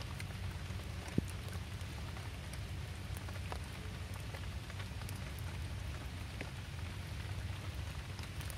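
Steady rain falling, an even hiss over a low rumble, with scattered drop ticks and one sharper tick about a second in.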